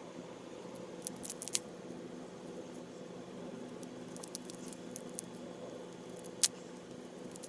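String being unwound from a baseball by hand: faint scratchy rustling and scattered small clicks, with one sharper click near the end, over a steady low hum.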